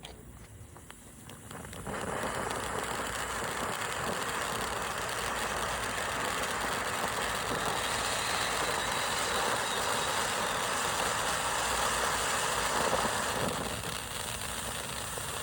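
A cone-shaped ground fountain firework (Kaboom Fireworks Cone Head) catches about two seconds in. It sprays sparks with a steady hiss for about eleven seconds, then dies down near the end.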